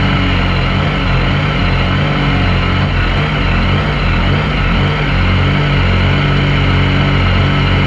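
Yamaha MT-09 three-cylinder motorcycle engine of a kartcross car idling while waiting at the start, heard from inside the cockpit. Its note wavers unevenly for a few seconds about a second in, then settles back to a steady idle.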